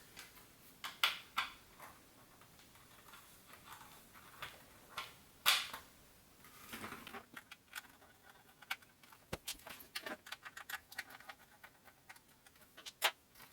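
Faint scattered clicks and plastic taps of hands working on a dishwasher's front control panel, unplugging a wire connector from the control board. The sharpest click comes about five and a half seconds in, and a run of small ticks follows in the second half.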